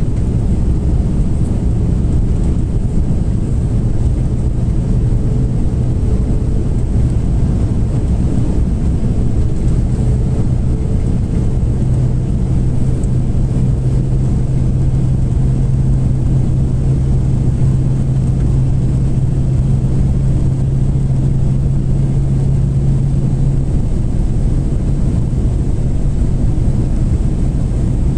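Cabin noise inside an Airbus A330-200 on approach: a loud, steady rush of engine and airflow noise. A low hum fades in about ten seconds in and cuts off a few seconds before the end.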